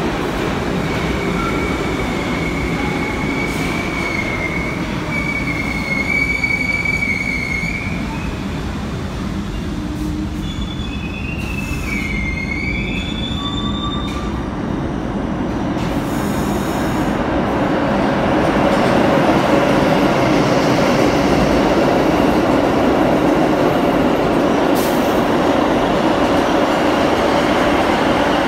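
New York City Subway trains running through the station. High steel wheel squeal, steady at first and then wavering, rides over the running noise in the first half. The rumble of a train passing close then builds and stays loud.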